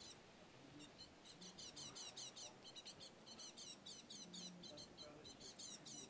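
Faint calling of a small songbird: quick runs of short, high, downward-sliding notes, several a second, coming in bursts.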